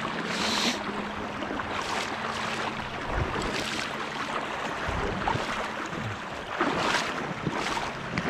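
Shallow river running over rocks, with irregular splashes of legs wading through the current every second or so.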